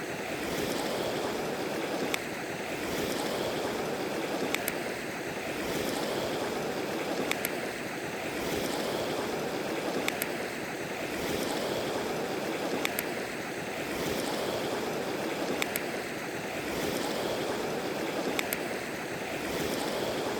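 Mountain stream running slightly high: a steady rush of flowing water that swells and eases a little, with faint sharp ticks now and then.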